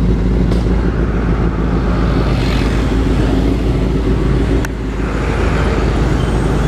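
Kawasaki Ninja sport bike engine idling steadily with traffic passing on the road; a single sharp click comes about two-thirds of the way through.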